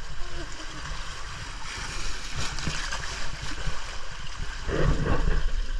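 Water rushing and gurgling along a narrow irrigation ditch around a floating inner tube, heard close up, with a low rumble on the microphone. It grows louder about five seconds in.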